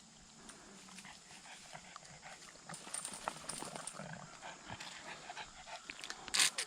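A pug lapping water with quick, wet tongue-laps, a fast run of small ticks, getting busier about halfway and with a louder splash near the end. The drinking sounds thirsty.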